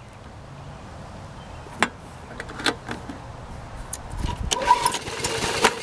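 Cold Briggs and Stratton Quantum mower engine being pull-started: a couple of sharp clicks, then a pull of the recoil starter about four and a half seconds in as the engine turns over and tries to catch, not yet running.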